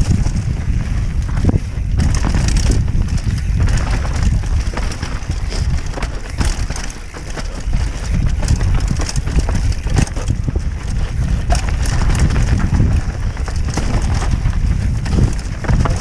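Mountain bike descending a rough, rocky, dry singletrack, heard from a helmet-mounted action camera: steady wind buffeting on the microphone under a constant clatter of many quick knocks and rattles from the tyres and bike over the rocks.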